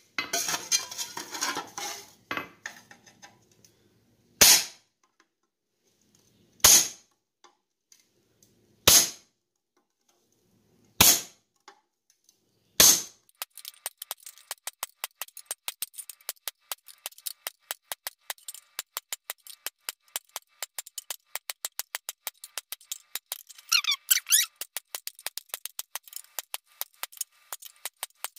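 Hand hammer striking a hardened cold chisel to cut sheet steel on an anvil. First come single heavy blows about two seconds apart, then, from about halfway, a fast, even run of lighter strikes, several a second.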